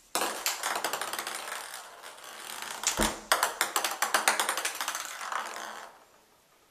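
Ping pong ball bouncing and skittering around an acrylic bathtub as a kitten bats at it: a rapid, uneven run of light clicks with a louder knock about three seconds in, stopping about six seconds in.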